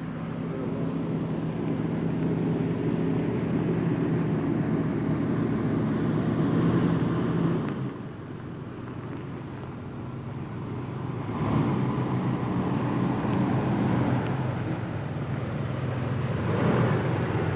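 Car engine running steadily as the car drives, dropping off about eight seconds in and picking up again a few seconds later.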